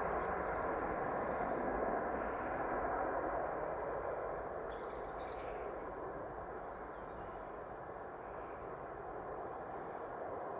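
Airbus A330 jet engines at takeoff thrust as the airliner lifts off and climbs away: a steady roar that slowly fades as it gains height.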